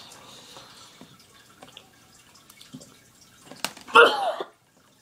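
Faint wet mouth clicks and chewing as a boy eats a hard candy, then about four seconds in a short loud vocal outburst from him.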